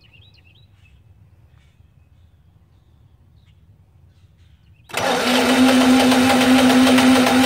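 Home standby generator's engine starting on its own about five seconds in after utility power has been cut, then running steadily with a steady hum.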